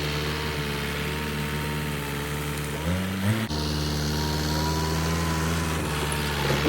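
A small engine running at a steady idle, rising briefly in pitch about three seconds in, breaking off suddenly, then idling steadily again.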